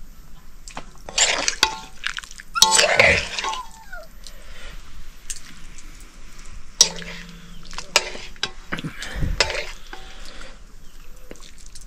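People eating a meal of rice and curry: scattered clicks and wet, liquid sounds, with two louder noisy bursts about a second in and about three seconds in.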